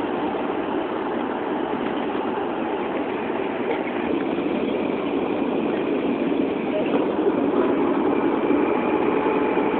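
Steady engine and road noise of a moving coach bus, heard from inside the cabin.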